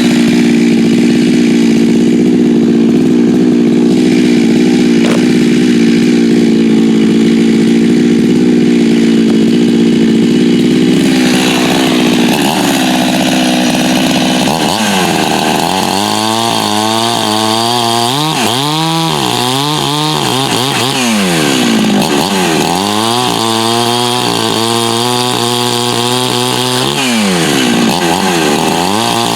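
86cc hybrid Husqvarna 372XP two-stroke chainsaw running at steady high revs, then about twelve seconds in its speed drops and keeps dipping and climbing again. The saw runs with a newly machined steel impulse nipple that cured an intake air leak.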